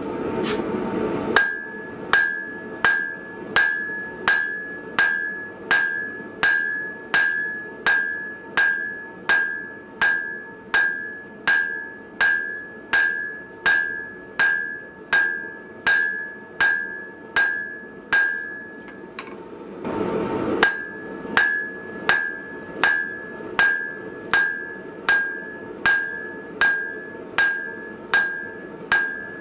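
Hand hammer forging hot steel chisel stock on an anvil: steady blows at about one and a half a second, each leaving a clear ring from the anvil. The blows break off briefly a little past two-thirds through, then resume at the same pace.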